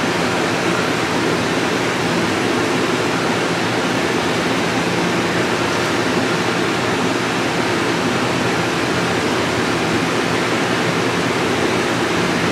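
Steady rushing air noise with a low hum underneath, unchanging throughout: a running fan.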